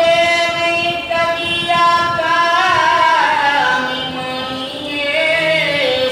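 A man singing a Punjabi naat unaccompanied in a high voice, holding long notes that waver and bend, the last one gliding down near the end.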